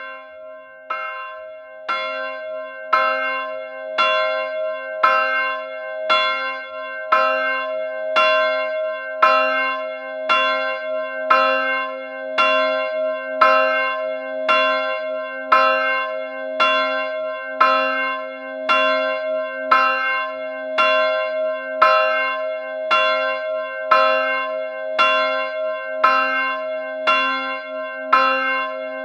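A bell struck about once a second in a steady, even rhythm, each stroke ringing on into the next.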